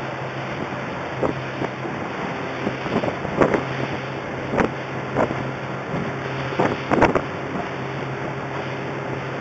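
Motorboat under way at speed: a steady engine drone under wind buffeting the microphone and rushing water, with several short thumps and splashes as the hull slaps over the waves, clustered in the middle few seconds.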